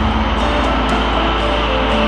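Tokaido Shinkansen high-speed train running past on a viaduct, a steady rushing noise, with soft background music under it.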